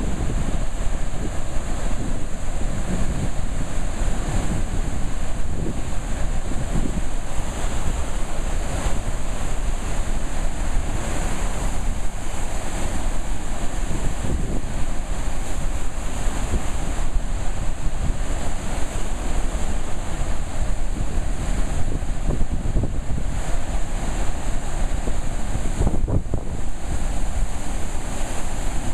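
Water jetting from a row of dam spillway gates and crashing into churning white tailwater: a steady, unbroken rush of falling water.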